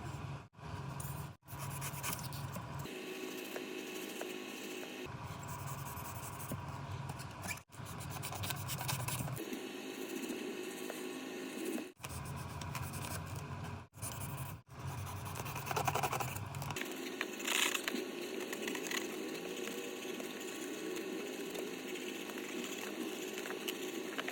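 Scraping and scratching from hand work on foam, heard as a run of short clips cut together, each with its own steady background hum.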